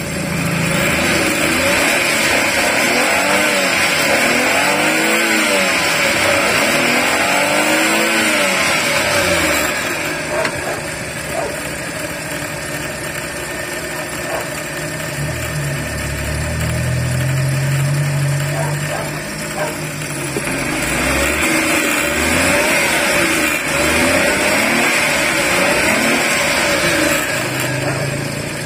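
Suzuki K6A three-cylinder EFI engine running after a no-start fault has been fixed. It is revved up and down several times, runs more steadily for a while in the middle, then is revved again.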